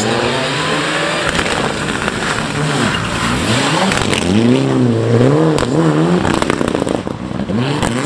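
Mitsubishi Lancer Evolution rally car's turbocharged four-cylinder engine revving hard through a tight chicane, its pitch repeatedly rising and falling as the driver gets on and off the throttle. Scattered sharp cracks are heard, and the revving is loudest around the middle.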